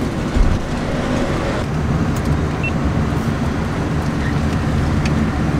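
Steady low road rumble inside the cab of a small electric kei mini truck on the move, with no engine note.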